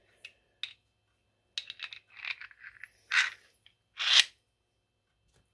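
Steel parts of a Lisle 34400 exhaust pipe expander clinking and scraping against each other as the die segments are fitted around the bolt and tapered nut. A few light clicks come first, then a run of clinks, then two louder scrapes about a second apart.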